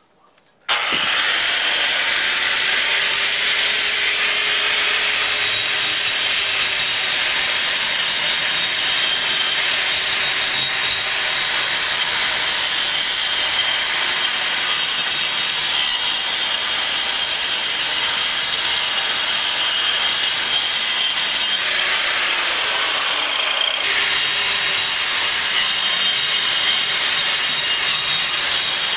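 DeWalt angle grinder with a toothed diamond disc cutting a groove into a concrete block wall, a loud, steady grinding that starts just under a second in. Its motor note dips briefly now and then as the disc bites into the block.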